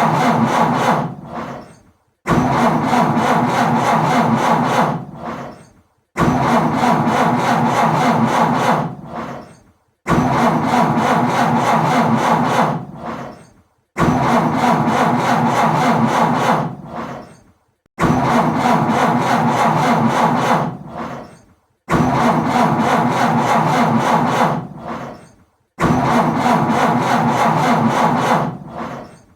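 A car's starter cranking the engine without it catching: a car that won't start. Each attempt runs about three seconds and then dies away. It repeats about every four seconds, some eight attempts in all.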